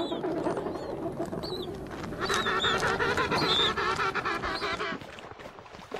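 African penguins braying in a rhythmic run of donkey-like calls. The calls grow louder about two seconds in and stop about five seconds in.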